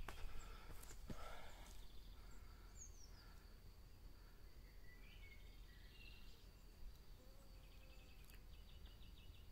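Near silence: faint outdoor ambience with a few soft handling knocks in the first two seconds, then faint chirping and short rapid trills over a faint steady high whine.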